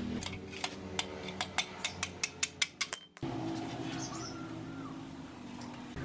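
Rapid light metallic clicks and ticks that come faster and faster, as the rusty front wheel hub of a Honda Super Cub C50 is worked by hand. After about three seconds they give way to a quieter stretch of steady low hum.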